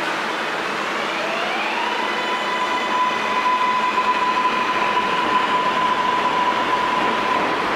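R188 subway train of the 7 line pulling out of the station. Its electric propulsion whine climbs for about a second as it accelerates, then holds at one steady pitch over the noise of the cars rolling past.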